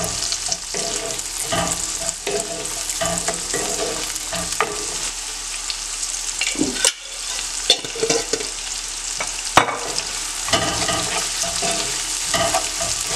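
Sliced shallots and curry leaves sizzling in hot coconut oil in a cast-iron pan, with a wooden spatula scraping and knocking against the pan as they are stirred.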